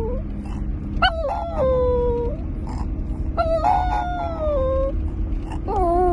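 Chihuahua howling in long drawn-out howls, three of them, each sliding down in pitch, over the steady low rumble of a car interior on the road.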